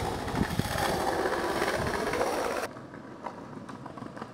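Skateboard wheels rolling fast over concrete: a loud, dense rumble that stops abruptly about two and a half seconds in, leaving quieter rolling with light clicks.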